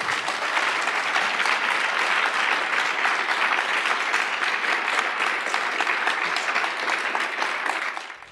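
Audience applauding at the end of a talk: steady, dense clapping that dies away near the end.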